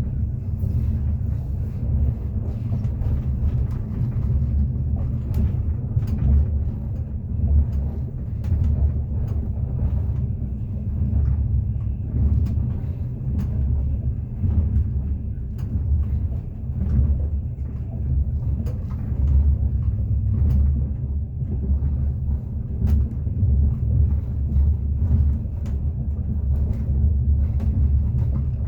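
Moving train heard from inside the carriage: a steady low rumble of wheels on rails, with scattered sharp clicks and knocks from the wheels and carriage.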